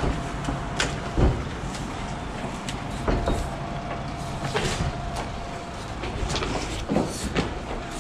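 Scattered knocks and rattles from metal scaffolding tubes and boards as a climber climbs down the scaffold, over a steady low rumble.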